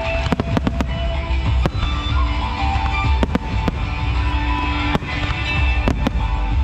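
Aerial fireworks bursting: sharp bangs come in small clusters near the start, around the middle and near the end, over loud guitar music.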